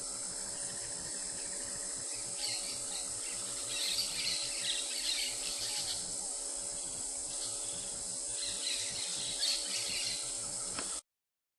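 Insects droning steadily at a high pitch, with birds chirping in bursts a few times over it; the sound cuts off suddenly near the end.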